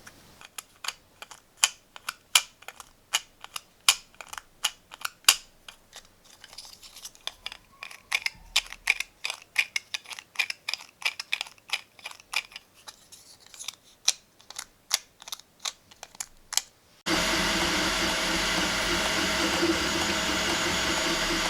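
Irregular sharp plastic clicks, a few a second, from a 3D-printed gear-and-spiral fidget toy being worked by hand. About seventeen seconds in, the clicking gives way abruptly to a loud, steady machine whir with a humming tone.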